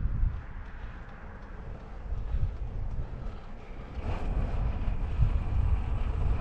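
Wind buffeting the microphone of a cyclist on the move: a steady low rumble that gets louder and fuller about four seconds in.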